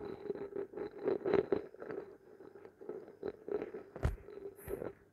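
Pencil writing on paper over a clipboard: a run of short scratching strokes and light taps as words are written, with one sharper tap about four seconds in.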